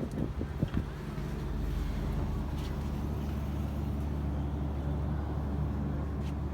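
Steady low rumble of motor-vehicle noise, with a few brief knocks in the first second.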